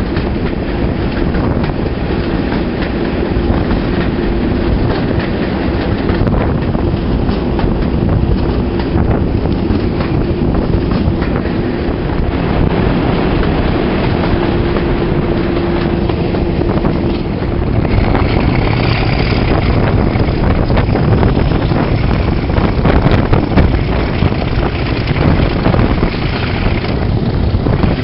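Class 37 diesel locomotive on the move, heard from its cab window: the English Electric V12 engine running steadily under power, with wheels on the rails and wind noise. About two-thirds of the way through, a higher whine joins in and fades out near the end.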